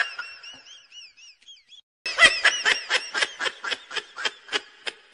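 High-pitched laughter in two runs. A giggle fades away over the first two seconds. From about two seconds in comes a rapid string of short 'ha' pulses, about five a second, that stops near the end.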